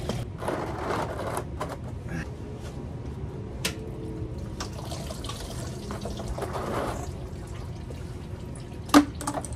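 Engine coolant draining from the Jeep Cherokee XJ's lower radiator hose connection into a plastic tub, the stream thinning to drips. A single sharp knock near the end.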